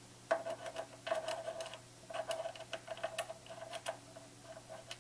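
Light metal-on-metal clicks and taps with a brief ring, irregular, several a second, starting just after the start: small tools being handled and fitted at the cross slide and tool post of a Sherline benchtop lathe.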